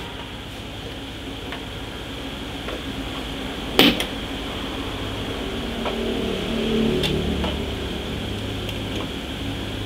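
Steady mechanical hum of room noise, like a fan or air conditioner, with one sharp click about four seconds in and a few fainter clicks.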